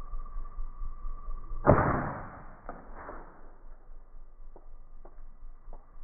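A single air-rifle shot about 1.7 s in, a sudden loud report that dies away over about a second, followed by two softer knocks and a few faint ticks as the waterhen is hit.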